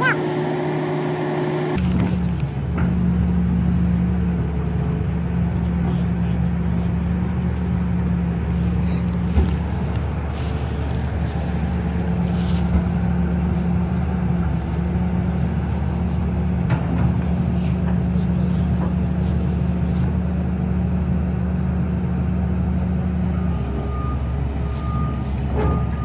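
Kobelco tracked excavator's diesel engine running steadily under work. Near the end its travel alarm starts beeping in short repeated tones.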